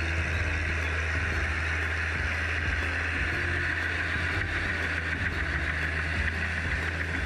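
Diesel engine of a Ford 8210 tractor running steadily: a low, even drone with a continuous higher hiss over it.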